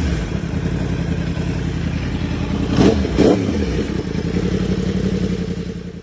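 Yamaha YZF-R1-series sportbike with a Graves aftermarket exhaust idling steadily in neutral, given two quick throttle blips about three seconds in that sweep the engine note up and back down.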